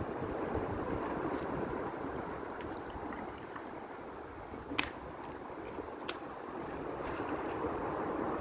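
Wind buffeting the microphone over flowing river water, a steady rushing noise, with a few sharp clicks, the strongest about five seconds in and another about a second later.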